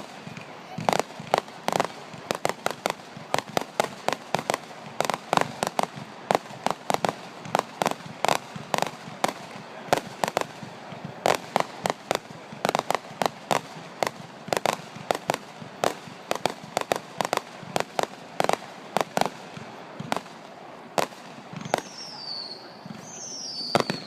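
Fireworks display: a rapid, irregular string of bangs and crackles, several a second, with two short falling whistles near the end.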